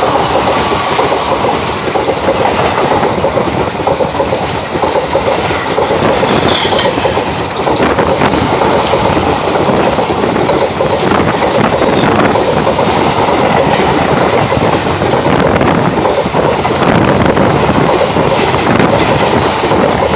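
Train hauled by a WDP4B diesel locomotive running at speed: a loud, steady rush of wheels on rail, with clickety-clack over the rail joints.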